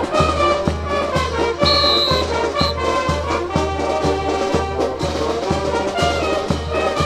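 Brass band playing a march-like tune, with trumpets and trombones over a steady bass beat about twice a second.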